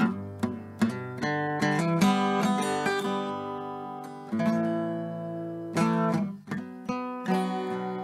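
Background music: an acoustic guitar picking and strumming chords, each note ringing and fading.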